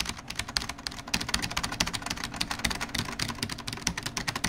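Rapid, dense clicking, many clicks a second, over a low steady hum.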